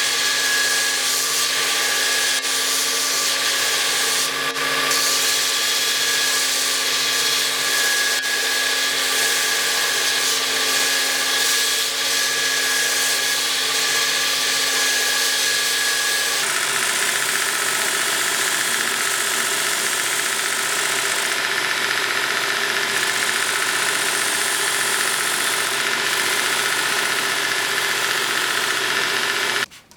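Electric grinder running steadily with a motor hum and a high grinding hiss, as a sword blade is re-ground. Its tone changes abruptly about halfway through, and it cuts off suddenly just before the end.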